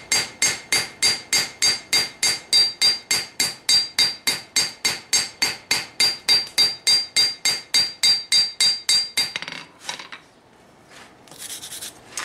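Hand hammer forging a knife blade on an anvil: a steady run of ringing blows, about four a second, that stops about nine and a half seconds in. A brief scraping follows near the end.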